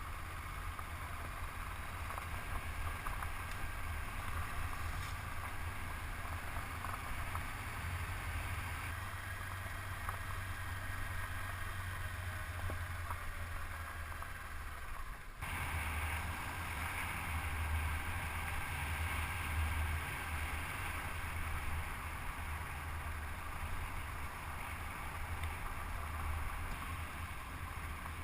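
Steady low rumble of wind buffeting the microphone over a Honda CB500X motorcycle on the move, with an abrupt change about halfway through.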